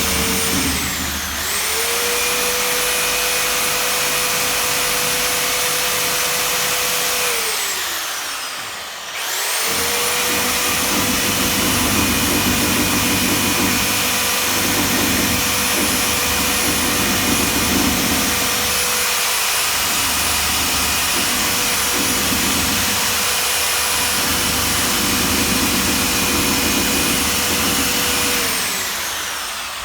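Electric power tool motor running at a steady high whine. It winds down about seven seconds in, starts up again about two seconds later, and winds down once more near the end.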